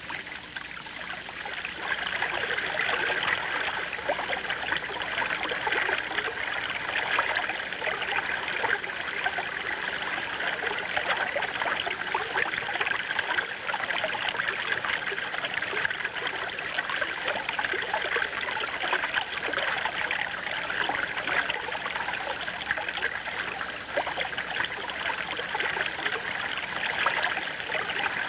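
River water running and trickling in a shallow stream. It rises a little about two seconds in, then holds steady.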